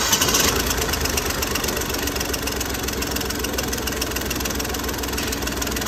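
Hyundai Grand i10 diesel engine just started and idling steadily with its diesel clatter. It runs smoothly, with no hunting or misfiring, now that the injector problem has been dealt with.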